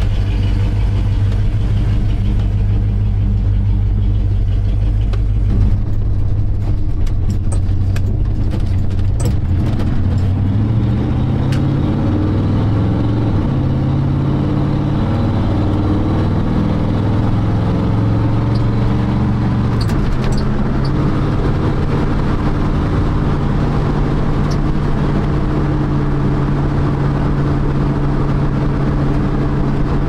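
Dodge W150 square-body pickup's engine heard from inside the cab: running steadily at first, then pulling away with the engine pitch rising and falling through gear changes, and settling into a steady drone at road speed.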